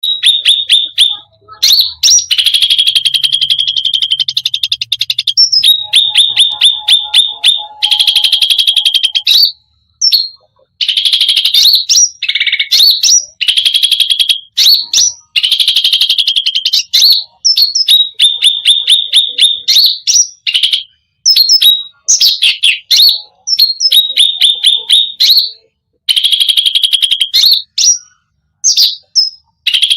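Cucak rante songbird singing loudly in long, rapid rolling trills and strings of fast, high, repeated notes. The runs last a second to several seconds each, broken by short pauses.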